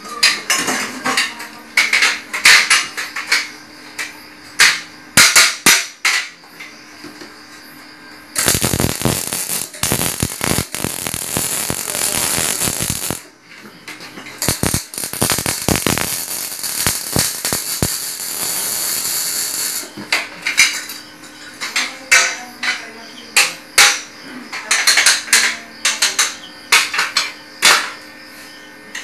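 Electric arc welding on a steel chair frame: a steady crackling sizzle in two long runs through the middle, with sharp metallic knocks and taps before and after.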